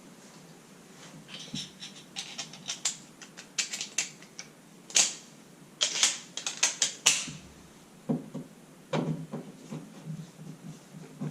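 Old light switch wall plate being taken off: a quick run of sharp clicks and scrapes for several seconds, then a few duller knocks.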